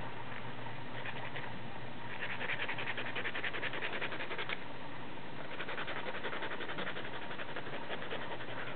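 Rapid rasping scratches on a bulldog's claws as its nails are trimmed, about ten strokes a second, in two spells of two to three seconds each, over a steady low hum.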